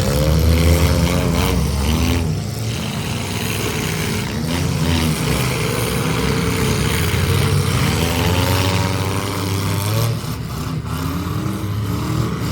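Vehicle engines running hard with a deep rumble, their pitch rising and falling again and again as the throttle is worked.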